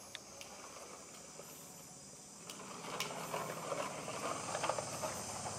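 Plastic toy dump truck rolling over a tiled floor as it is towed along, its wheels and body rattling, growing louder about halfway through with scattered clicks. A steady high hiss runs underneath.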